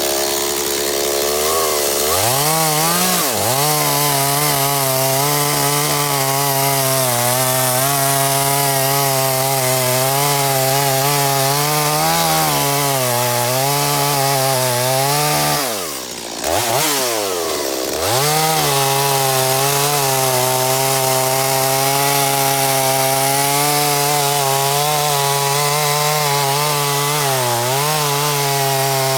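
Stihl MS250 two-stroke chainsaw revving up and running at full throttle while cutting wood, its pitch sagging now and then under load. About halfway through the revs drop off briefly, then climb back up.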